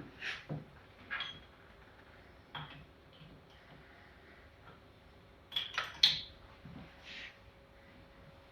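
Scattered metallic clinks and knocks of hand tools and jack parts being handled and set against the shock body. The loudest is a quick cluster of sharp clicks about five and a half to six seconds in.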